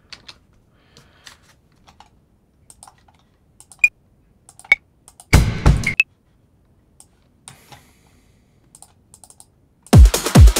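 Computer keyboard typing and mouse clicks, with a couple of short, sharp ringing clicks midway from clave samples auditioned in Ableton's browser. In the last half second a techno drum loop cuts in, with a deep kick drum on each beat.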